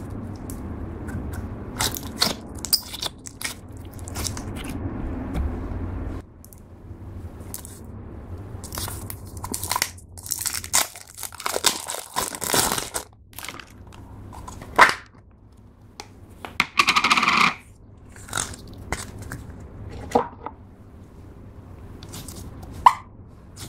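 Clear slime with heart confetti being stretched and squished by hand, giving sticky clicks and small pops. About ten seconds in comes a longer crinkling as the clear plastic seal is peeled off a store-bought slime tub, then a yellow clear slime is squeezed with more sticky clicks near the end.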